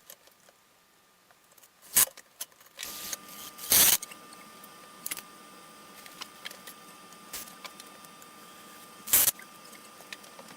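Workshop handling noises: a few sharp knocks and clatter, the loudest about four seconds in and another near the end. Under them a faint steady high hum starts about three seconds in.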